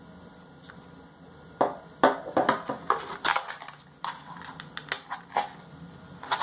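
Plastic packaging crinkling and crackling as it is handled and pulled open, with sharp clicks. It starts about one and a half seconds in.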